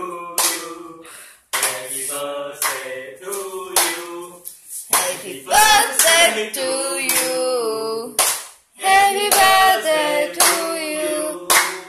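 A few voices singing a birthday song together, with hands clapping along; the singing breaks off briefly twice.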